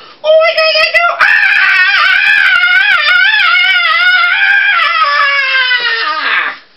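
A man's long, high falsetto squeal, wavering up and down in pitch, with a brief break about a second in; near the end it slides down and stops. A comic vocal shriek.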